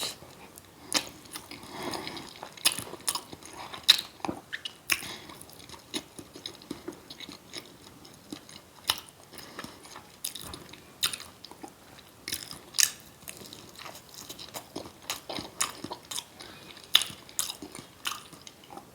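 Close-miked chewing of a crab cake dipped in tartar sauce, with wet mouth smacking sounds and sharp clicks coming irregularly, a few a second.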